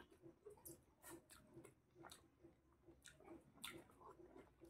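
Faint, irregular wet squishing and chewing: rice and chicken curry being mixed by hand on a plate and eaten with the mouth close to the microphone.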